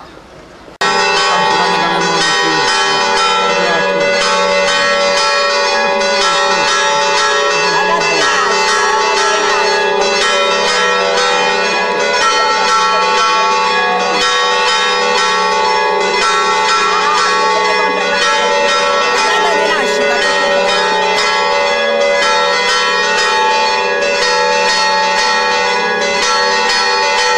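Church bells ringing in a fast, continuous peal, struck many times a second with the tones overlapping. It starts abruptly about a second in.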